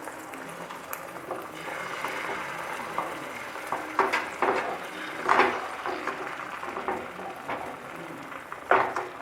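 Egg omelette batter frying in hot oil in a kadai, a steady sizzle. A few sharp knocks and scrapes of a utensil against the pan come through it, the loudest near the end.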